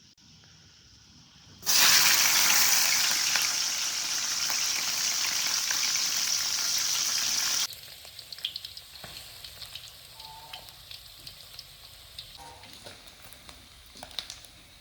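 Eels frying in hot oil in a wok: a loud sizzle starts abruptly about two seconds in, then drops sharply a little past halfway to a quiet crackle with scattered pops.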